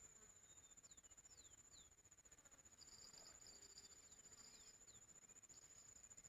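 Faint, steady high-pitched insect trill, with a few short falling chirps over it.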